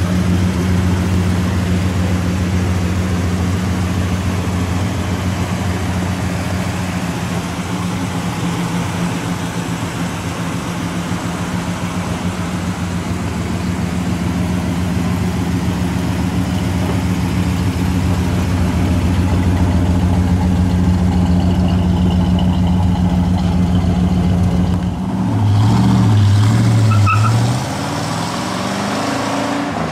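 1965 Pontiac GTO's big-block 428 V8 running at a steady idle, then revving up as the car pulls away about 25 seconds in, the pitch climbing in steps before easing off.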